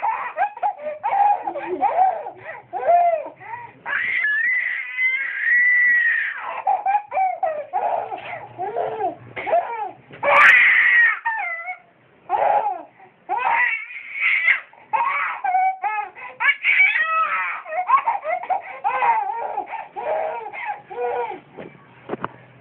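A baby laughing in a run of giggles and high-pitched squeals, with a long held squeal about four seconds in and a loud shriek about ten seconds in.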